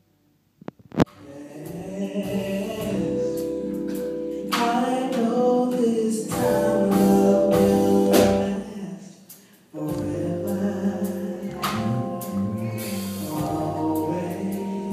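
Live band with a female lead singer performing a slow soul ballad, with bass guitar, drums and keyboards. The sound comes in with a sharp click about a second in, and drops out briefly past the middle before returning abruptly.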